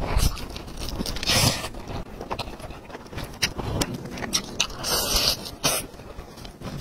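Close-miked biting and chewing of spice-coated roast chicken, meat torn from the bone with the teeth: many short wet clicks and smacks, with a few louder rasps about a second and a half in and again around five seconds.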